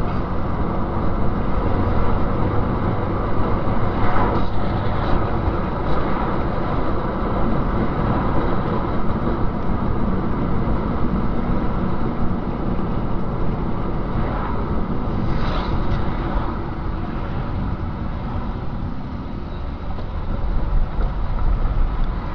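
Steady road and engine noise of a car driving in city traffic, heard from inside the car, with a few brief clicks or rattles. It drops a little near the end as the car slows in traffic, then picks up again.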